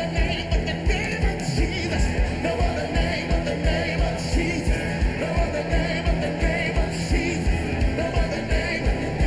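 Live worship band playing a rock-style song: a steady drum beat under band instruments, with voices singing over it.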